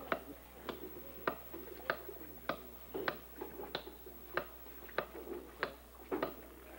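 Steady, even ticking: sharp clicks a little under two a second, at a regular beat.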